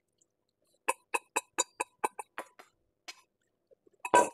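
A metal spoon taps the rim of a stainless-steel mixing bowl to knock out the last of the beaten egg. It makes about nine quick ringing clinks, around five a second, that grow fainter. Near the end there is one louder clatter.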